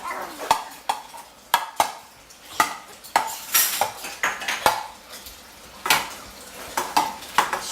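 A dozen or so sharp, irregular knocks and clatters as a toddler bangs on kitchen cabinets and the dishwasher, some with a short metallic ring like rattled dishes.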